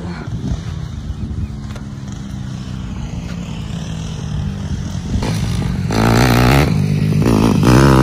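Motorcycle engine running with a steady low note, growing markedly louder about five to six seconds in.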